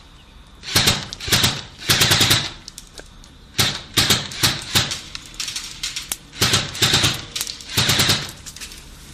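A rifle firing short bursts of rapid automatic fire, about a dozen bursts with short pauses between them.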